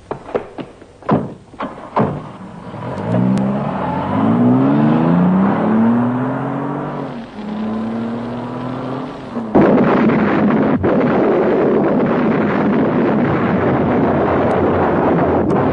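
A few sharp knocks, then a car engine revving away, its pitch climbing again and again as it goes up through the gears. About nine and a half seconds in, a bomb goes off: a sudden loud explosion, then a continuing rush of noise.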